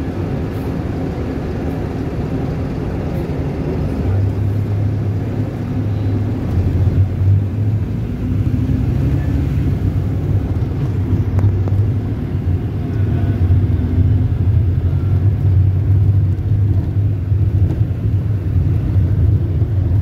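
Low, steady engine and road rumble heard from inside a moving vehicle, growing a little stronger and more uneven about four seconds in.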